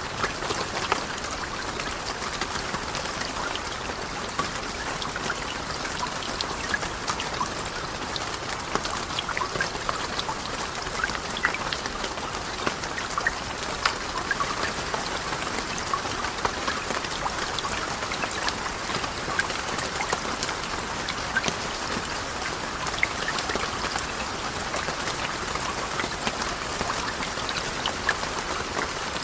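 Steady patter of falling water drops over an even hiss, with many small, irregular ticks scattered throughout, like rain on a surface.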